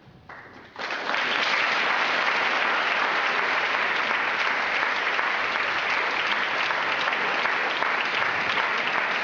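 Theatre audience applauding, starting suddenly about a second in and then holding steady.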